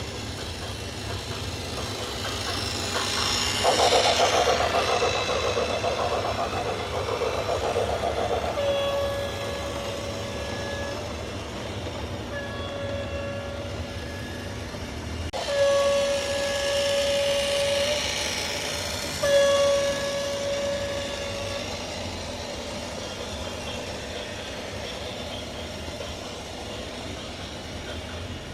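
A horn sounding four held single-pitch blasts over a steady low rumble, typical of a train sounding its horn as it runs. A louder rushing passage comes before the first blast.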